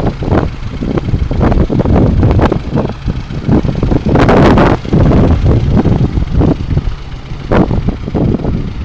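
Lada Kalina engine idling evenly, without stumbling, just after a cylinder-head repair with new valves.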